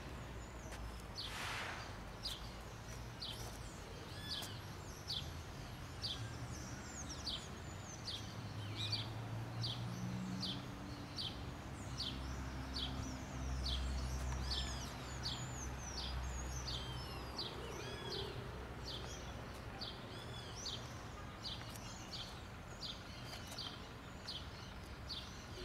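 Birds chirping, a run of short high calls about twice a second that keeps going, over a low steady background rumble.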